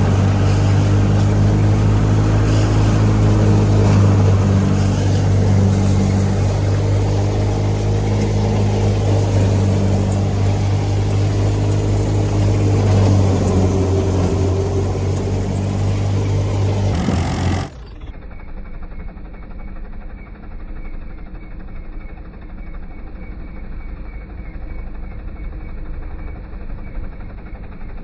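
Clayson 8080 combine harvester running at steady working speed, a loud even engine and machinery hum. About eighteen seconds in it cuts abruptly to a quieter, duller steady hum.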